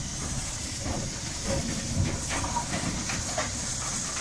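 LMS 'Jinty' 0-6-0 tank steam locomotive standing in steam, giving a steady hiss of escaping steam over a low rumble, with a few faint clicks about halfway through.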